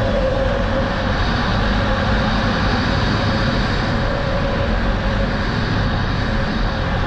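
Polaris Sportsman ATV running steadily at riding speed, its engine note a held tone over a steady rush of tyre and track noise, with wind buffeting the helmet-mounted microphone.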